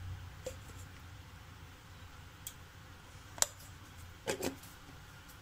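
A spoonful of ghee melting in a hot aluminium pot, with a few scattered sharp ticks and crackles over a faint steady low hum. The sharpest tick comes about three and a half seconds in, and a quick pair follows just after four seconds.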